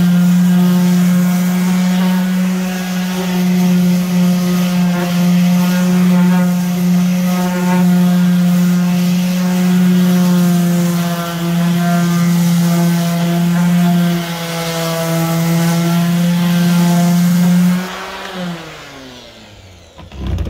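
Electric sander with 80-grit paper running steadily against a wooden shelf, sanding at old glue. Near the end it is switched off and its pitch falls as it spins down.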